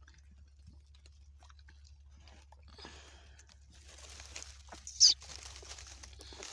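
Dry straw bedding rustling and crunching as newborn puppies are handled in it, with one brief, sharp, high-pitched sound about five seconds in.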